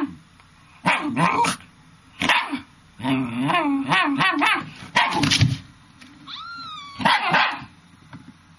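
Dog barking and yipping in about seven short, irregular bursts, with a few whine-like glides in pitch near the end.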